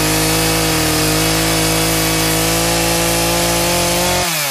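Petrol chainsaw at full throttle cutting through the trunk of a small Christmas tree at its base, its engine note steady and creeping slightly upward. About four seconds in the throttle is released and the engine speed falls away quickly.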